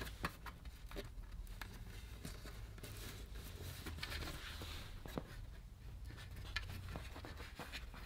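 Faint, scattered light clicks and soft scratching of fingers pressing a thin laptop screen cable into the routing grooves of the lid, over a low steady hum.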